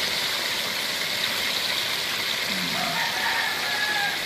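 Chicken pieces deep-frying in a wok of hot oil: a steady, even sizzle of bubbling oil.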